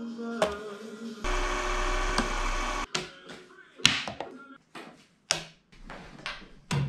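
An irregular string of short, sharp taps and knocks through the second half, the loudest about four seconds in. Before them, a couple of seconds of steady noise.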